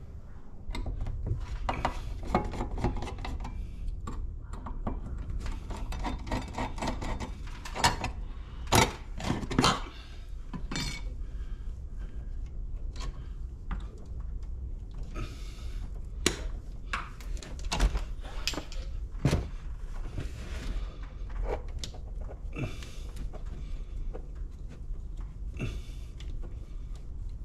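Metal clicks, clinks and knocks of hand tools, lineman's pliers among them, working the wires in a steel electrical junction box, as a string of separate sounds with busier clusters now and then.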